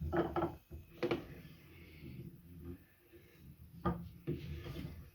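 Vice on a Smart Workstation Pro workbench being worked, its clamp mechanism grinding roughly, with a few sharp knocks as the jaws and handle move. In a freshly assembled vice this grinding is not right.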